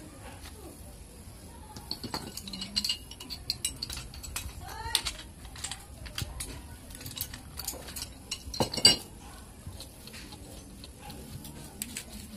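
Irregular metallic clinks and clicks of a pipe wrench against a threaded metal fitting as it is tightened onto a pipe, the loudest clank about nine seconds in.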